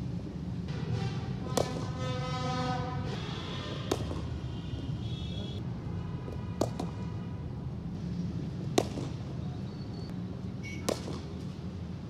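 Cricket bat striking a ball, five sharp cracks about two seconds apart, the loudest about nine seconds in.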